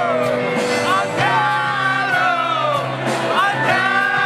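Live band music with singing: a vocal melody over sustained chords and a steady beat.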